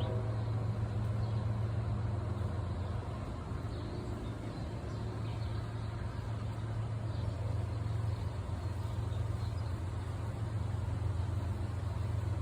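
A steady low vehicle rumble, a constant hum under an even wash of noise.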